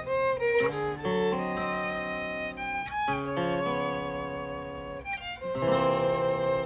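Live instrumental music led by violin: long held notes over sustained chords that change every second or two.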